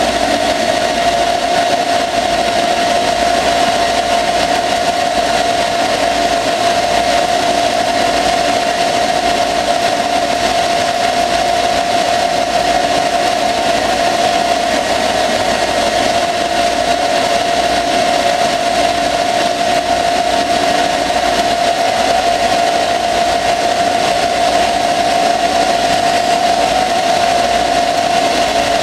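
Small CNC lathe turning a steel axle under flood coolant: the spindle and cut run with a steady pitched whine over the hiss of spraying coolant, unchanging throughout.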